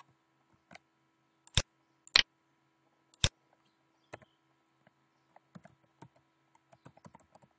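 Computer mouse and keyboard clicks: four sharp clicks spread over the first three seconds or so, then a quick run of soft key taps from about five and a half seconds in as a password is typed at a terminal prompt.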